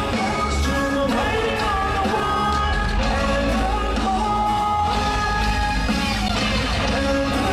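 Live pop-rock band playing loudly, with singing over electric guitar and a steady bass and drum beat.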